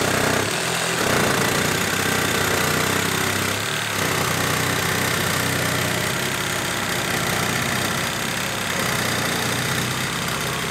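KIMO cordless reciprocating saw running steadily under load, its blade cutting through a 4x4 wooden post.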